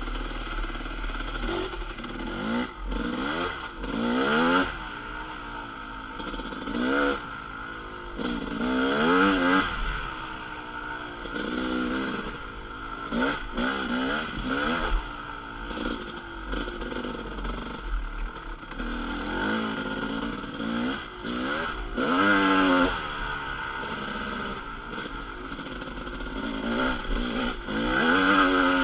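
Dirt bike engine being ridden hard, revving up again and again as the throttle is opened and shut, with several louder bursts of throttle.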